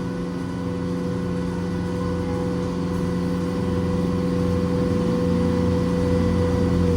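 Water taxi boat's engine running steadily at cruising speed, a constant low drone with a steady hum.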